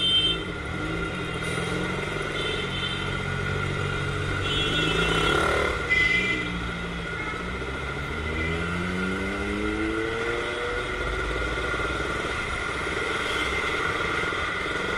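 Motorcycle engines on a road, one revving and accelerating with its note rising for a few seconds over steady traffic noise. Short vehicle horn toots come near the start.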